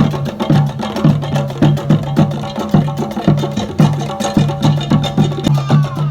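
Music with a steady percussive beat, about two strikes a second, over a repeating bass line.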